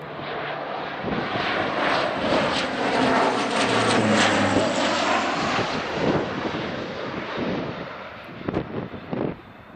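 A low-flying military aircraft passing by: its engine noise swells to a peak about four seconds in, then fades away, with wind gusting on the microphone near the end.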